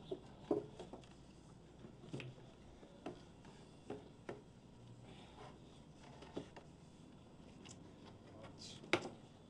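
Sparse light knocks and taps of a sign and an aluminium stepladder being handled as the sign is held up and fitted against a wall, the sharpest knock near the end.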